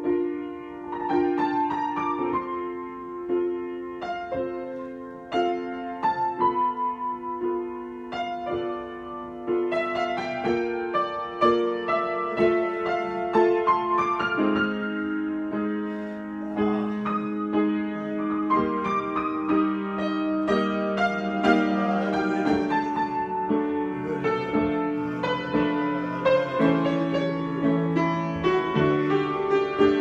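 Grand piano played solo in an improvisation: sustained chords with a melody over them, the playing growing busier and a little louder from about ten seconds in.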